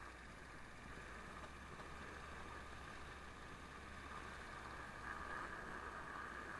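Faint, steady, muffled running noise of a Lada Niva driving on a snow-covered road: a low hum with an even hiss above it, no distinct events, growing slightly louder in the second half.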